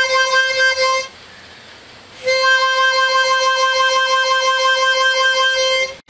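Harmonica holding one note with a hand tremolo: the cupped hands open and close over the instrument, making the note waver in quick, regular pulses. The note stops about a second in, then starts again a little over a second later and is held until just before the end.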